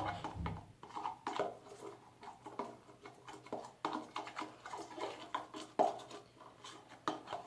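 A utensil stirring salt into dish soap in a small container, with irregular scrapes and clicks against the container.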